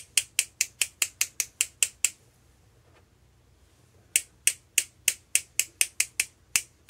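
Paintbrush tapped repeatedly against the handle of a round ink blending tool to spatter gold watercolour droplets: sharp clicks, about three to four a second, stopping for about two seconds in the middle and then starting again.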